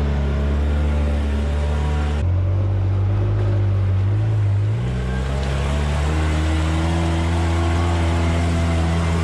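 Polaris Ranger 6x6 utility vehicle engine running steadily while driving a rough trail, heavily loaded. The sound changes abruptly about two seconds in, and the engine note rises briefly near the middle before settling into a steady run.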